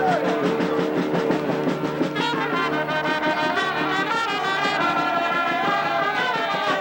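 Marching brass band playing a tune, trumpets and trombones sounding held notes that move between chords, fuller from about two seconds in.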